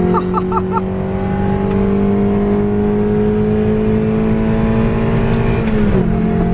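Car engine pulling in one gear, heard from inside the cabin, its pitch climbing slowly and then dropping at a gear change near the end.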